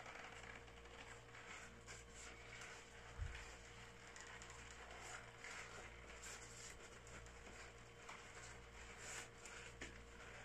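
Faint rustling and handling of taro leaves as they are folded and pressed into pinangat parcels on a cutting board, with a single low thump about three seconds in, over a steady low hum.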